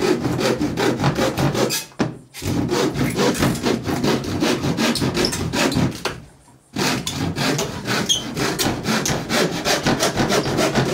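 Hand saw cutting through a plywood floor in quick back-and-forth strokes, pausing briefly twice, about two seconds in and about six seconds in.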